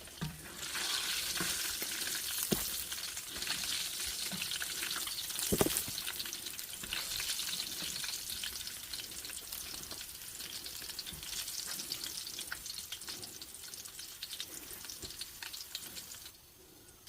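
Food sizzling as it fries in a hot pan while being stirred, with a few sharp knocks along the way. The sizzle drops away shortly before the end.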